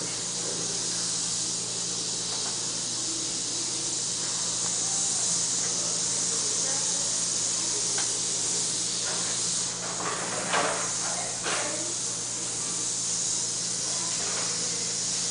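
Dental suction hissing steadily over a low electrical hum, with a few short, louder noises about ten seconds in.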